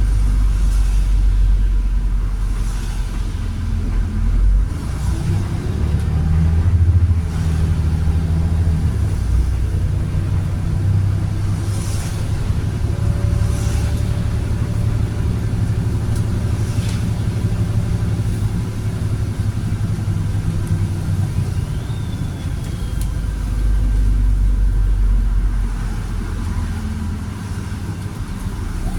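Volvo B7RLE single-deck bus with a Voith automatic gearbox, its diesel engine running under load as the bus drives. The engine note steps up and down with the gear changes, swells louder a few seconds in and again near the end, and a faint whine runs through the middle.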